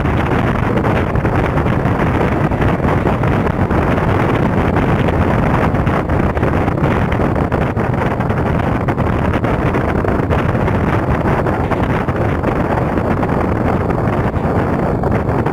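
Mumbai suburban electric train running at speed, its steady rumble of wheels on rails mixed with wind rushing over the microphone.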